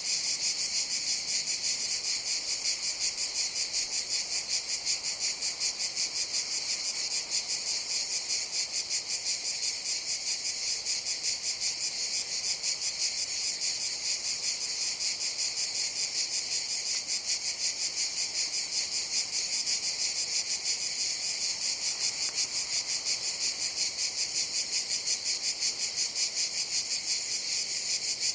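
A chorus of cicadas buzzing: a steady, high-pitched drone that pulses evenly several times a second without a break.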